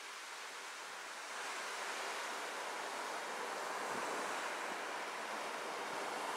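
Steady rushing wash of river water against the shore, growing louder about a second and a half in.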